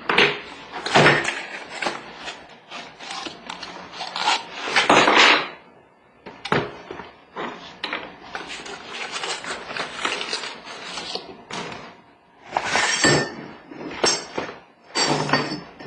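Unpacking a kayak motor mount: a cardboard box rustling and being rummaged one-handed, with hard plastic bracket pieces and an aluminium arm knocking and clinking as they are set down on a hardwood floor. A run of short knocks and rustles with louder bursts near the start, about five seconds in, and twice near the end.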